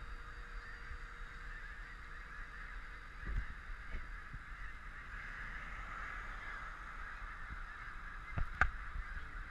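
A large flock of geese honking all at once, a continuous clamour of overlapping calls. A few low thumps break in, the sharpest near the end.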